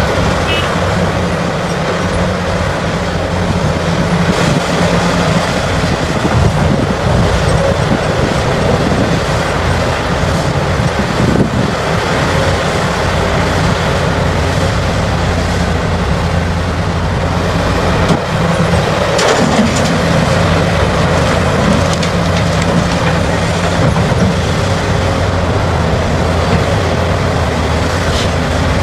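Large diesel mining excavator working, its engine running steadily under load with hydraulic and machinery noise, and a few sharp knocks near the middle.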